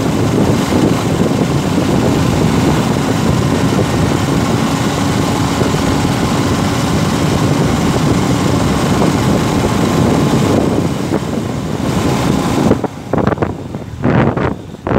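Heavy wind rush on the microphone of a moving motorbike, over road and engine noise. Near the end it turns choppy and gusty.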